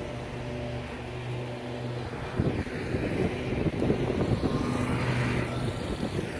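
Steady low hum of a running motor, unchanging in pitch, with footsteps rustling through grass from about two and a half seconds in.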